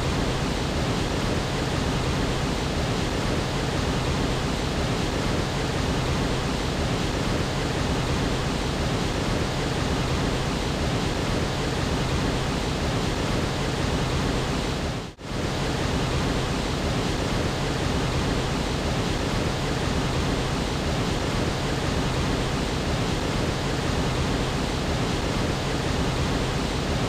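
A 25-metre waterfall pouring, a steady rush of falling water that dips out for an instant about halfway through.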